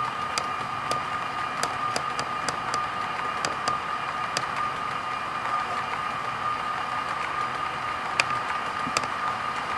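HO scale model coal train's hopper cars rolling along the track, with a steady high hum and irregular sharp clicks as the metal wheels cross the rail joints.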